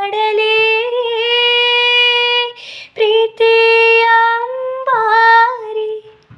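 A woman sings unaccompanied, holding long sustained notes with no clear words. There is a short breath between phrases about two and a half seconds in, and the singing ends about six seconds in.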